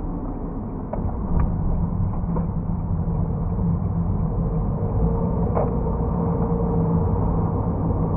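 Steady low rumble and hum picked up by a car's dashcam at a railway level crossing, with a few light clicks.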